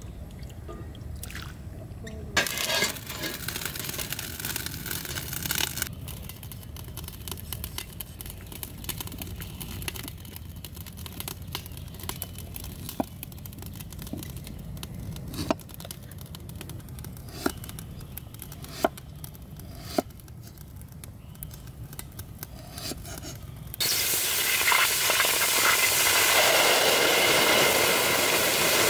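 About two seconds in, a few seconds of splashing water as wet pig intestines are rinsed. Then a cleaver chopping a knobby root on a thick wooden chopping board, single sharp knocks a second or two apart. About 24 seconds in, a loud steady hiss of water boiling hard in a large iron wok.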